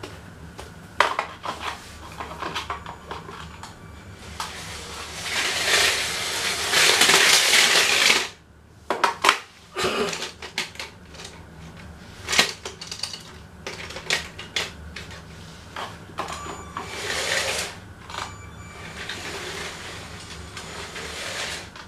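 Irregular sharp clicks and clatter of small hard objects, with a stretch of loud rustling hiss about five seconds in that cuts off suddenly after about four seconds, and weaker hissing near the end.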